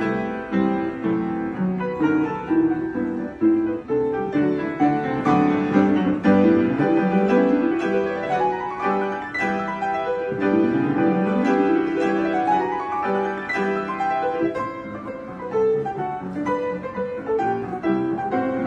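Two upright pianos playing together as a duet in a classical style. Two long rising runs climb up the keyboard in the middle.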